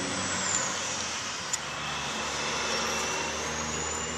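Steady machine hum and hiss with a faint high whine that dips in pitch and slowly climbs back, and a single short click about a second and a half in.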